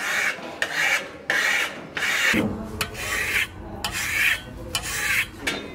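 A trowel scraping across a partly dried siloxane coating (Duaflex, a resin with a little silica filler) in about seven short back-and-forth strokes, polishing it smooth into a marmorino-like stucco finish.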